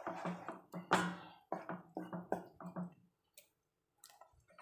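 Wooden spatula stirring a loose semolina kesari mixture, with the sugar melting, in a nonstick pan: quick wet slopping strokes, several a second, that stop about three seconds in and leave only a few faint ticks.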